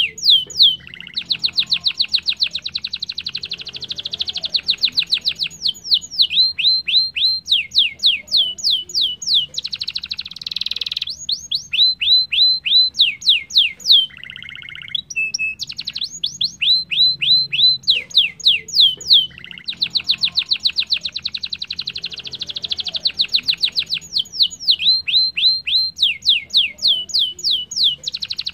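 Domestic canary singing: a long song of fast rolls and rapid runs of repeated falling whistled notes, switching to a new phrase every few seconds, with a brief break about halfway through.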